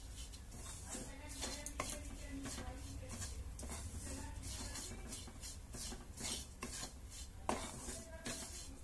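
Wooden spatula stirring and scraping desiccated coconut around a black kadai as it roasts in ghee: a steady run of soft scrapes, a few a second, with one sharper knock of the spatula on the pan near the end.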